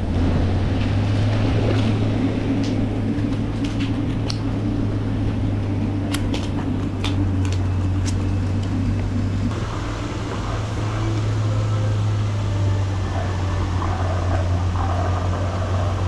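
Steady low mechanical hum of pond paddlewheel aerators running, with a few sharp clicks between about six and eight seconds in.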